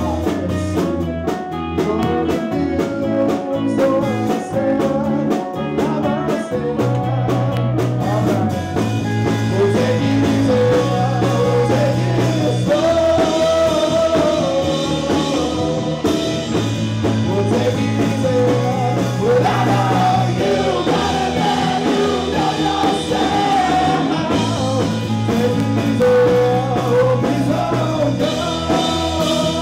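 Live rock band playing: a singer's lead vocals over electric bass, guitar and drum kit.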